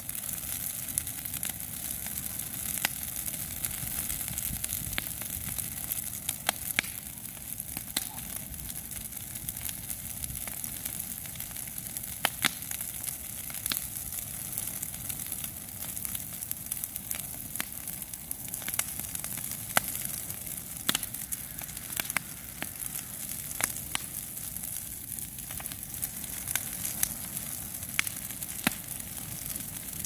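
Heap of dry coconut palm fronds burning, crackling with irregular sharp pops every second or two over a steady hiss.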